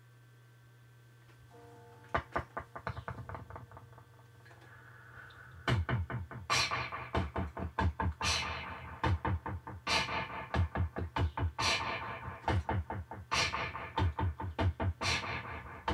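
Beatboxed percussion into a handheld microphone, built up as a repeating live loop. A low steady hum comes first, then a quick run of clicks about two seconds in, and from about six seconds a loud, dense rhythm of repeating hits.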